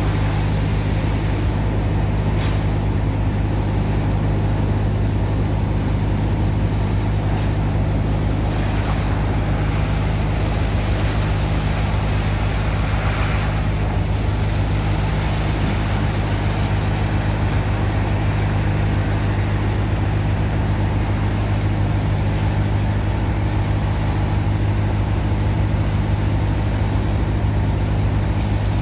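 Engine of a sand-suction pump running at a constant speed, a steady low drone, with the rush of water from hoses washing sand into slurry.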